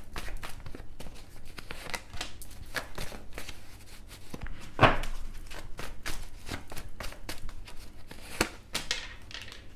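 A tarot deck being shuffled by hand: a run of short card clicks and rustles, with a sharper snap about five seconds in and another near the end.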